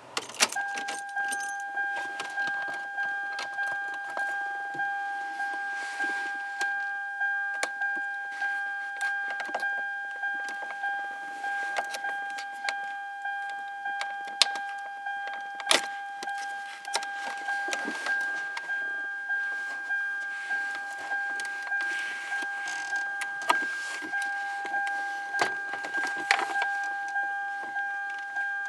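A car's warning chime dinging over and over, about once every three-quarters of a second, starting about half a second in. Sharp clicks of plastic trim and parts being handled sound over it.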